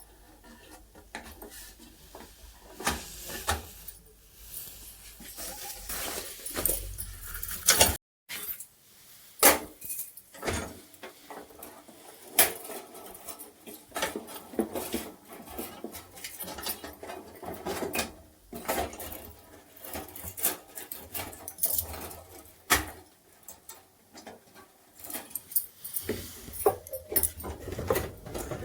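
Irregular clicks, clinks and knocks of small metal parts and tools being handled during a room heater repair, with a brief dropout about eight seconds in.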